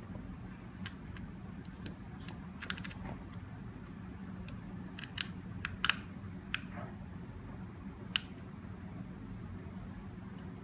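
Scattered light clicks and taps of small screws being handled and driven into a door lock's front panel, irregular, with a sharper click a little past halfway.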